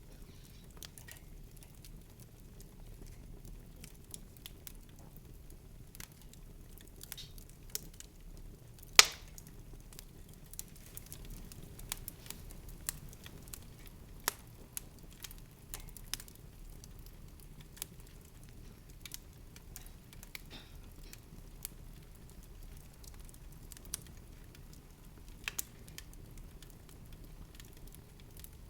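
Irregular soft clicks and crackles over a low steady hum, with one sharper click about nine seconds in.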